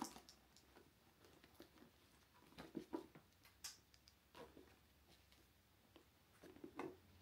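Near silence broken by a few faint taps and rustles as small items are taken out of a leather handbag and set down.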